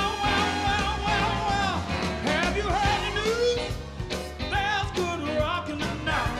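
Blues-rock dance music with a steady beat, its melody holding one long wavering note through the first two seconds.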